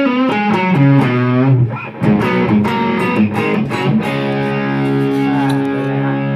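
Electric guitar played through an Idea Sound Product overdrive pedal into a quietly set Mesa Boogie amp, with lightly driven picked notes and bends. About four seconds in a chord is struck and left ringing, then cut off near the end.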